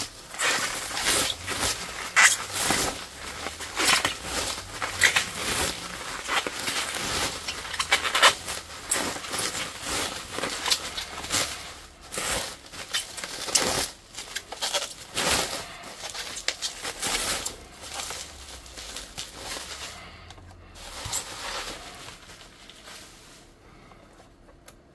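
Plastic bubble wrap being unwrapped and handled, making dense, irregular crinkling and crackling that thins out and quietens in the last few seconds.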